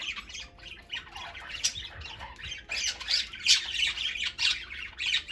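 Pet budgerigars chattering and squawking: a busy, continuous run of short scratchy calls with several sharper, louder squawks.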